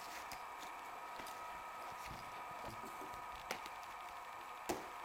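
Faint clicks and taps of lock-picking tools being handled against a Euro cylinder lock, over a steady low hum and hiss, with two sharper clicks about three and a half and nearly five seconds in.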